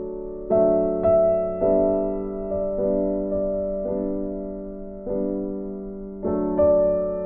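Background music: a soft piano playing slow, sustained chords, a new chord struck every half second to a second and left to ring and fade.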